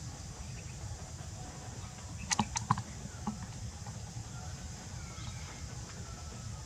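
A disposable diaper being unfolded by hand, giving three or four quick, sharp crackles of its plastic backing a little over two seconds in and one more soon after, over a steady low hum.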